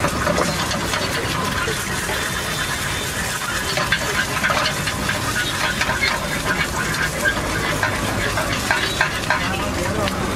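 Eggs sizzling as they fry in a small pan over a gas flame, with a metal spatula clinking and scraping against the pan in many quick, irregular ticks.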